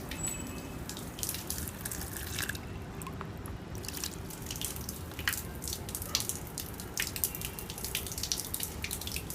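Water splashing and dripping irregularly from a small submerged brushless DC water pump running, over a faint steady low hum; the pump itself is very quiet.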